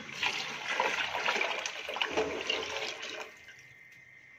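Water poured from a plastic container into a large steel pot of mince-and-pea masala, splashing and gurgling for about three seconds and then stopping. This is the water being added to boil for the keema pulao rice.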